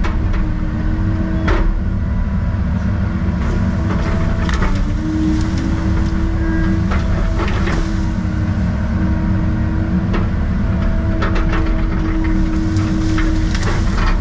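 Excavator's diesel engine running steadily, heard from inside the cab, with a hydraulic whine that shifts in pitch as the boom and bucket are worked. A few sharp knocks break in along the way.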